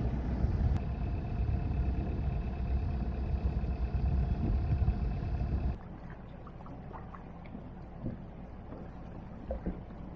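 Wind rumbling on the microphone over a sailboat's engine running steadily while under way. About six seconds in this drops abruptly to a much quieter, even hum with a few faint small knocks.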